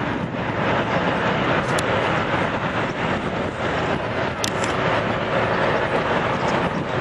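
Jet airliner engines making a steady noise, with a couple of faint clicks in the middle.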